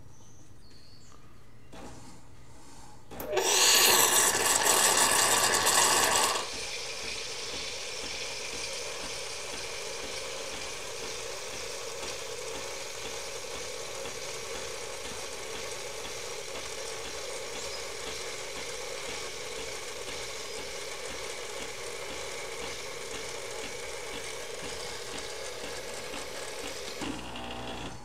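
Nespresso Lattissima One (De'Longhi) milk system frothing and dispensing milk. A loud rush starts about three seconds in and lasts some three seconds. Then the machine runs with a steadier, quieter hiss and hum as frothed milk streams from the spout into the glass.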